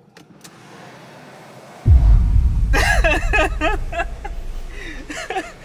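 A sudden loud low rumble about two seconds in that slowly fades, with voices talking over it.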